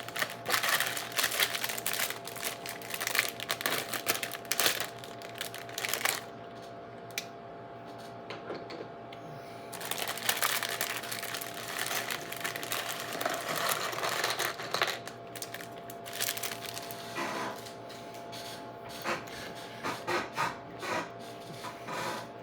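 Plastic Lego parts bags crinkling as they are handled and cut open with scissors, in two long stretches, followed by scattered sharp clicks.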